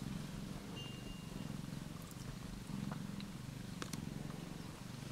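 Steady close-up purring from a nursing Australian Mist cat and kitten, a low buzz that swells and fades with each breath.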